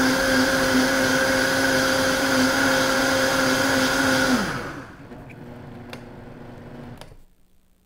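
Vitamix blender running at full power, blending whole tomatoes into sauce with a loud, steady motor whine. About four and a half seconds in it is turned down and the motor winds down with a falling pitch into a softer hum. Two clicks near the end, then it stops.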